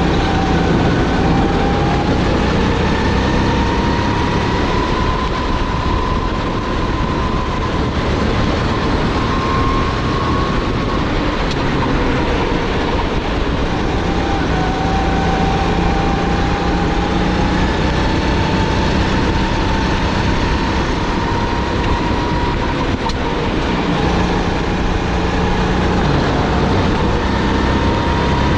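SODI GT5R rental kart's 270cc engine at racing speed, heard from the driver's seat: its pitch climbs steadily along each straight and drops back twice under braking for corners, under a constant rushing noise.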